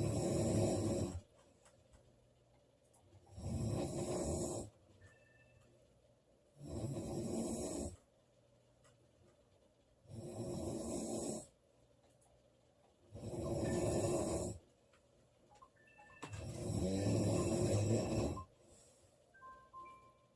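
A woman snoring in a slow, regular rhythm: six snores, each a second or two long, coming about every three seconds.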